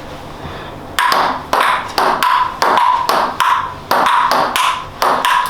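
Table tennis rally: a ping pong ball clicking off paddles and the table, about three hits a second, starting about a second in.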